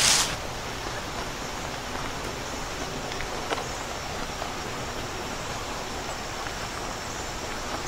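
Steady, even background hiss with a few faint ticks about three and a half seconds in.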